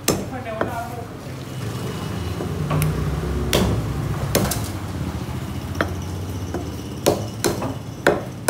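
A large knife chopping through fish pieces onto a wooden log chopping block: six or seven sharp knocks at uneven intervals, several of them close together near the end. A low rumble swells under them in the middle.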